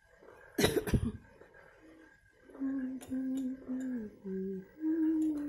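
A person coughs once, with a second short burst about a second in. From about two and a half seconds in, a person hums a tune in held notes that step up and down.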